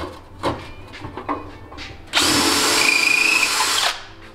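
A few light knocks, then a cordless drill runs at speed for just under two seconds, about halfway in, boring a hole in the wall panel with a steady high whine.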